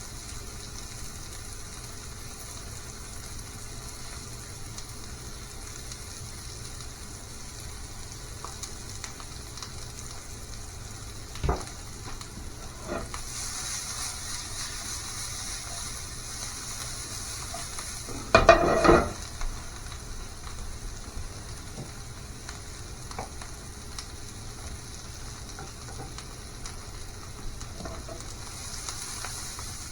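Food sizzling steadily as it fries in a pan, with a single knock partway through and a louder clatter of a utensil against the pan about two-thirds of the way in.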